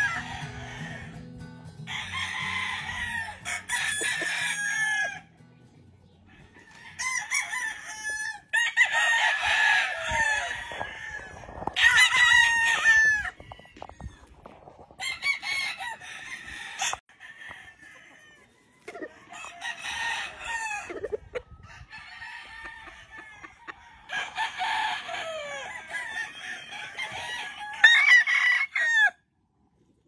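Gamefowl roosters crowing again and again in bouts of a second or few, several birds overlapping, with short quiet gaps between the bouts.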